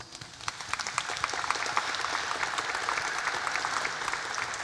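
Audience applauding, a dense patter of many hands clapping that builds over the first second and tapers off near the end.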